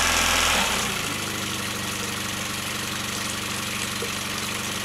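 Yamaha F15 two-cylinder four-stroke outboard running: about half a second in its revs fall and it settles into a steady idle. It is still warming up and is running smoother and quieter now that the valve clearances have been set, after the first cylinder's valves had been too tight.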